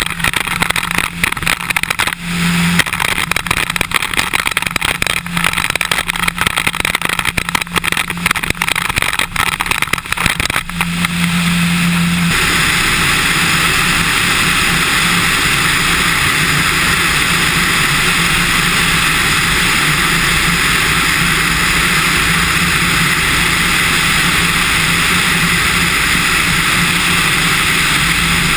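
Cessna 150's four-cylinder Continental O-200 engine at full takeoff power under heavy wind rush on a microphone mounted outside under the wing. The airflow buffets in gusts at first, then about twelve seconds in settles into a steady, even rush as the plane gains speed and climbs out.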